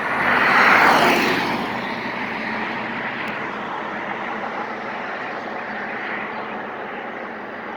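Steady vehicle and road noise, swelling briefly about a second in as a vehicle goes by.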